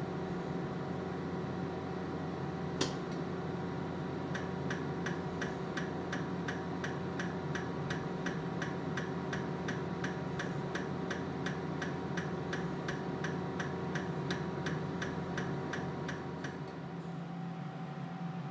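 Pulsed laser welder firing a long, even run of shots, each a sharp click, about three a second; it starts about four seconds in and stops a couple of seconds before the end, with one single shot a little earlier. Under it runs the steady hum of the welder's cooling fan.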